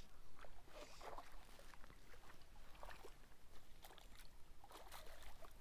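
Irregular small splashes of water as a hooked largemouth bass is fought toward the bank on a fly rod.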